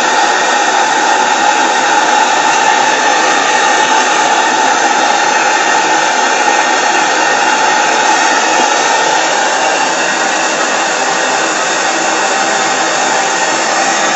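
A PMR double-acting oscillating V-twin model steam engine running steadily on steam from a Saito BT1L boiler, giving a loud, even whirring hiss.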